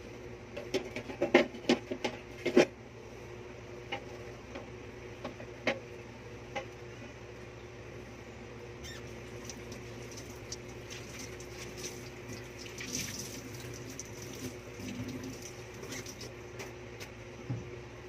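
Dishes and utensils clinking and knocking in a stainless kitchen sink, several sharp clinks in the first few seconds, then light scattered taps and a brief run of water from the tap about two-thirds of the way in, over a steady low hum.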